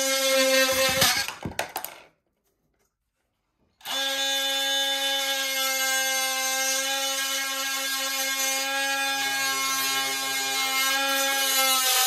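Cordless oscillating multi-tool running with a steady buzz as its blade makes a flat cut through a PVC drain pipe at floor level. It stops about 2 s in, is silent for about 2 s, then starts again and runs steadily.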